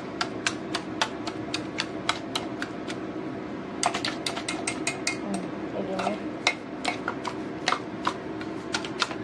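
Wire whisk striking and scraping a stainless steel bowl as it mashes boiled sweet potato, an irregular clatter of sharp metal clicks a few times a second, thickest about four seconds in.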